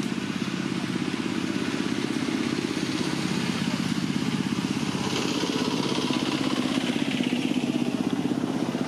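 A small engine running steadily, a low hum with a fast, even pulse.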